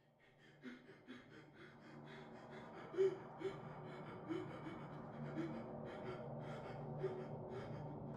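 A person breathing hard in quick, ragged gasps, about two to three breaths a second, over a low steady hum that fades in from silence and grows louder.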